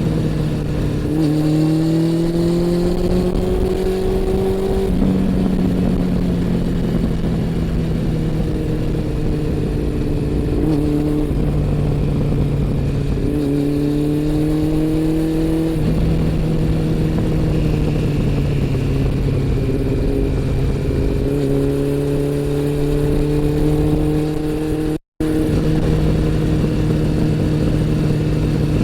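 Honda CB400 Super Four's inline-four engine and exhaust on the move, with wind rushing over the bike. The engine note climbs in pitch under acceleration three times and falls back in between. The sound cuts out completely for a moment about 25 seconds in.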